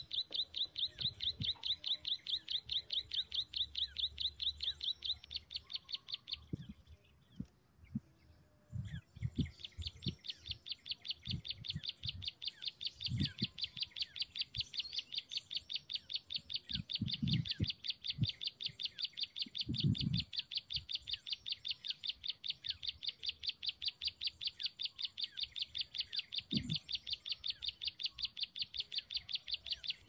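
Ciblek sawah (prinia) call played as a lure: a fast, even string of high chirping notes repeated several times a second. It breaks off for about two seconds near the seven-second mark, then resumes. A few short low thumps are heard under it.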